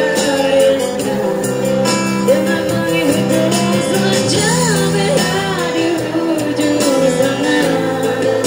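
Live amplified band music: a woman sings the melody into a microphone over keyboard, electric bass and acoustic guitar.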